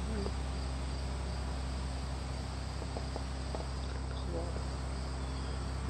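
Steady chirring of insects, crickets by the sound, over a low steady hum.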